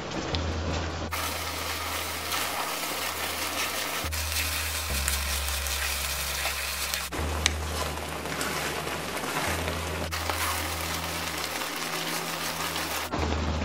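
A grated-coconut, sugar and milk mixture bubbling and sizzling in a frying pan as it is stirred and cooked down into a thick filling. The sound changes abruptly every three seconds or so.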